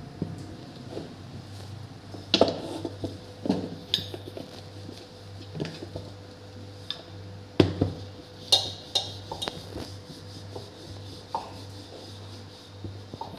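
Wooden rolling pin rolling out paratha dough on a rolling board, with irregular sharp clacks and knocks as the pin strikes the board.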